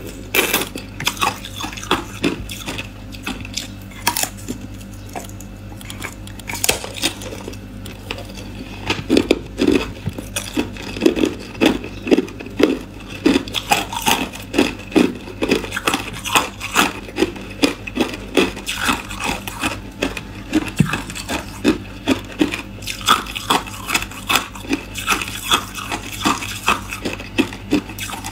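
Hard ice being bitten and crunched between the teeth, close to the microphone: scattered sharp cracks at first, then from about nine seconds in a steady run of crunches, about two a second, as the chunk is chewed.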